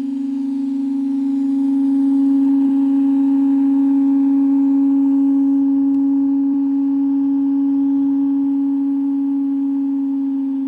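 Organ pipe blown by air from a large inflated balloon, sounding one steady held note with a few fainter overtones.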